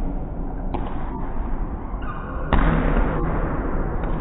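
Volleyball rally in a large echoing gym: a few sharp ball contacts over steady hall noise, which turns suddenly louder about two and a half seconds in.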